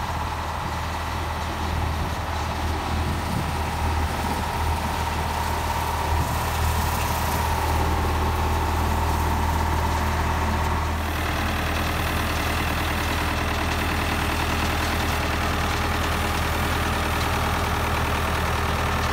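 David Brown 1210 tractor's three-cylinder diesel engine running steadily as the tractor drives along. Its note shifts about eleven seconds in.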